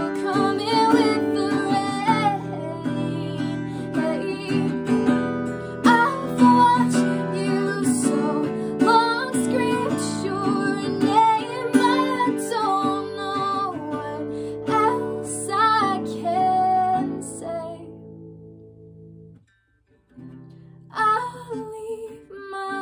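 A woman singing to her own strummed acoustic guitar. The music fades out about 17 seconds in, breaks off briefly, and voice and guitar come back in near the end.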